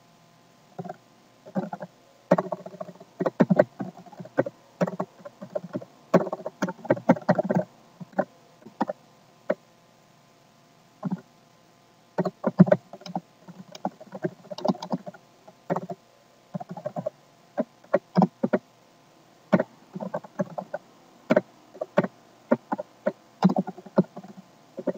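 Computer keyboard typing: irregular bursts of quick keystrokes with short pauses, and a break of about two seconds near the middle.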